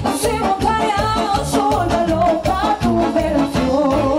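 Live band music with a steady drum beat and singing into microphones.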